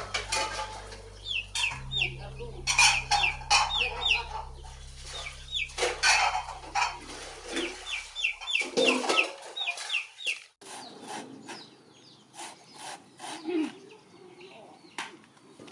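Chicken clucking, with bursts of quick, high, falling peeps through the first half. In the last few seconds, scattered sharp knocks of a machete cutting into a coconut.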